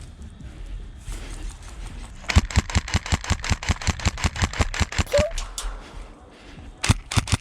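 Airsoft electric rifle, a KWA Ronin T10 with a Gate Titan trigger unit, firing full-auto. A burst of rapid, evenly spaced shots starts about two seconds in and lasts about three seconds, and a second burst starts near the end.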